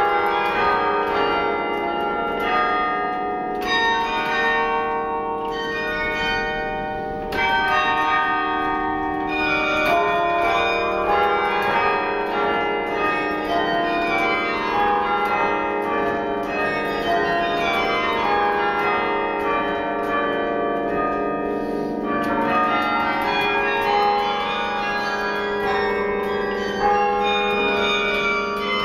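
A 72-bell bronze carillon being played from its baton keyboard: a continuous piece of bell music, many notes and chords struck in quick succession and ringing over one another.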